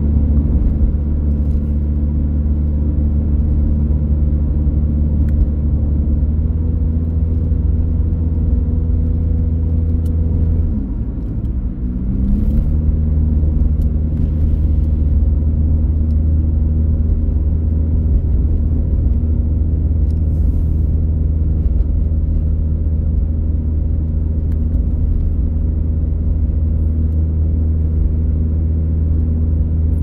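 A car running at road speed, with a steady low rumble and a steady engine note. About eleven seconds in, the engine note drops and climbs back up.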